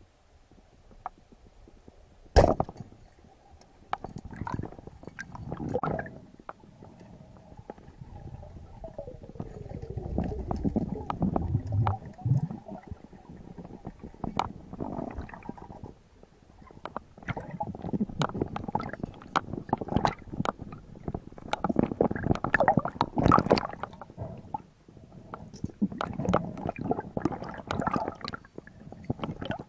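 Underwater recording: a speargun fires with one sharp crack about two seconds in, followed by gurgling, bubbling rumbles and scattered clicks and knocks as the speared fish is handled underwater.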